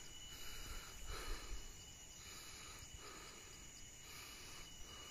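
Quiet outdoor ambience with a steady high-pitched insect drone. A few soft breath-like sounds come close to the microphone in the first two seconds.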